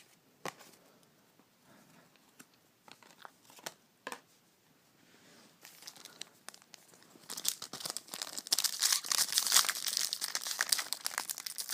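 Plastic trading-card pack wrapper being handled and torn open: a few light clicks and taps at first, then from about seven seconds on a steady run of crinkling and tearing.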